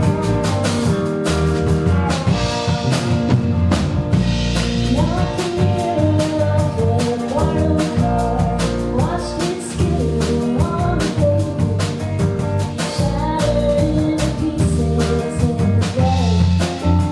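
Live rock band playing: a drum kit keeping a steady beat under guitar and low bass notes, with some gliding melodic lines.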